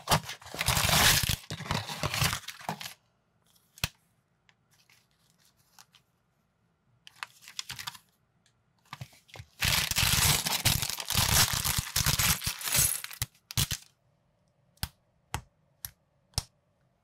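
Small cardboard box torn open and its packaging crinkled, in two spells of loud crackling tearing; then four sharp clicks as minifigure parts snap together.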